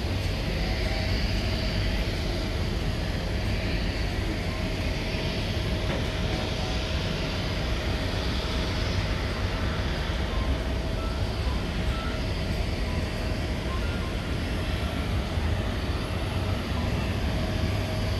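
Steady drone of jet aircraft on an airport apron, with one steady whine held over a low rumble.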